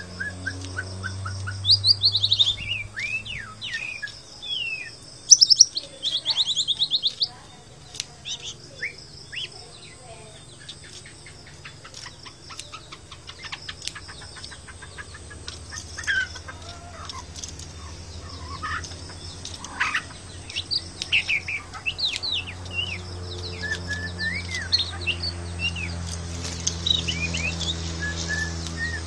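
Caged white-rumped shama singing: a varied run of clear whistles, sliding notes and rapid trills in irregular bursts, loudest in a quick trill a few seconds in.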